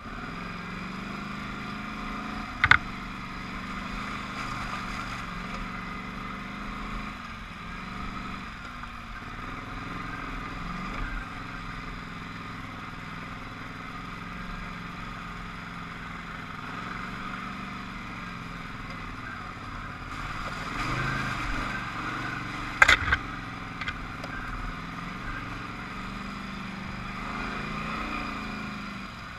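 Polaris Scrambler 850 ATV engine running steadily as it rides over a dirt trail, picking up briefly about two-thirds of the way through. Sharp knocks stand out, one a few seconds in and a double knock about two-thirds through.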